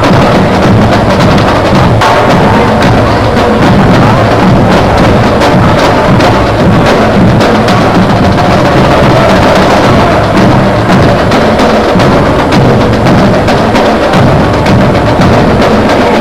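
Loud music with drums and percussion, a steady stream of beats.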